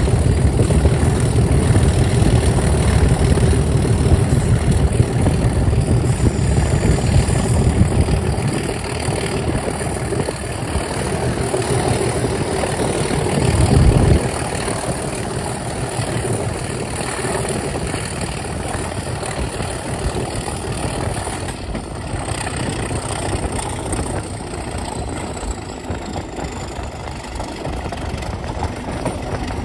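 Class 37 diesel-electric locomotive's English Electric V12 turbocharged engine working hard while hauling a train, heard close up from the coach behind. The engine note eases about eight seconds in. A brief loud low swell comes about fourteen seconds in, and a faint high whistle falls slowly in pitch in the second half.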